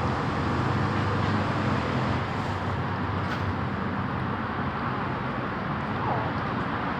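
Steady low rumble of background noise, of the traffic or engine kind, with a faint single kitten mew about six seconds in.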